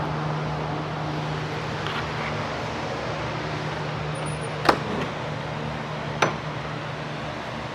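Steady low motor hum over an even rushing noise. Two sharp clicks about one and a half seconds apart in the second half.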